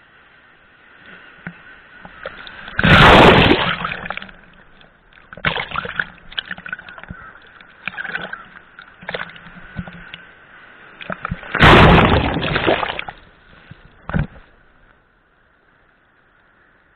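Water splashing and sloshing in uneven rushes, with two loud splashes about three seconds in and about twelve seconds in, dying away near the end.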